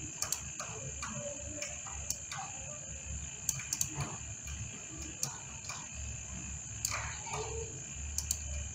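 Scattered, irregular soft computer mouse clicks over a steady high-pitched whine and low hum from the recording setup.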